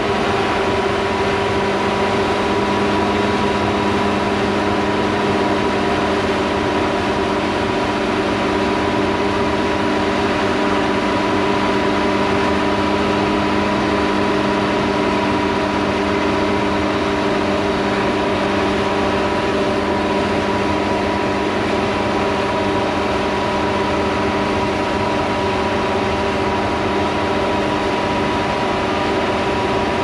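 Steady machine hum, held at one unchanging pitch with several fixed tones over a rushing noise, like machinery running at constant speed.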